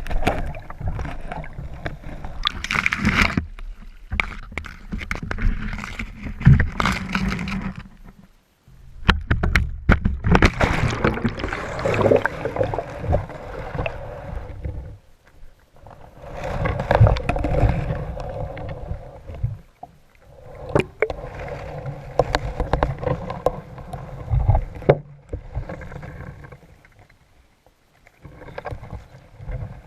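Muffled rushing and gurgling of water with scattered knocks and clunks, as picked up by a GoPro in its waterproof housing dragged underwater on a magnet-fishing rope. The noise comes in uneven stretches that break off sharply several times.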